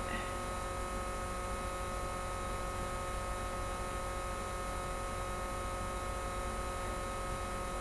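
Steady electrical hum made of several fixed tones, over a faint even hiss.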